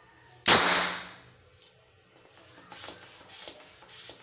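Homemade alcohol-fuelled M4-style toy gun firing once: a single sharp bang about half a second in that rings out briefly in the bare room. Four shorter, quieter noises follow, evenly spaced about two-thirds of a second apart.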